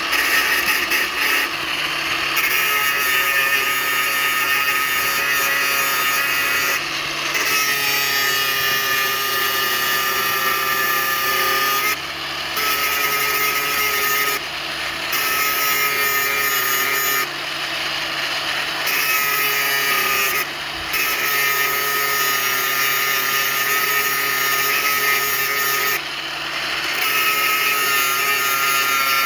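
Stick (arc) welding with basic electrodes: the arc crackles and hisses in runs of several seconds, with short breaks between runs.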